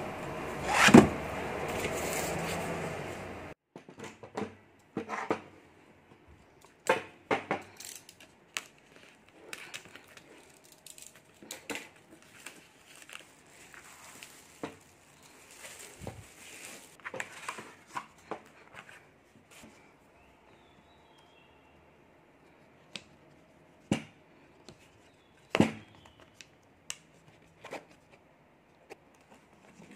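Music that cuts off about three and a half seconds in. It gives way to plastic film crinkling and tearing off a canvas, with scattered clicks and knocks from the handling. Near the end come a few separate taps as wooden wedge keys are pushed into the corner slots of the wooden stretcher frame.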